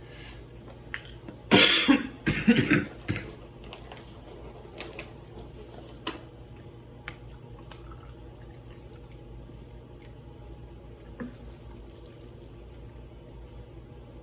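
Wet instant snow being tipped and knocked out of a plastic snow globe into a bucket: a burst of wet slides and knocks about a second and a half in, then a few light plastic clicks.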